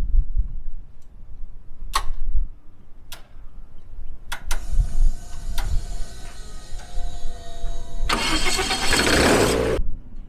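Viking aircraft engine being started for the first time. A few sharp clicks, then the electric starter cranks the engine with a steady whine. About 8 seconds in the engine fires with a loud, rough burst for under two seconds, then cuts off suddenly.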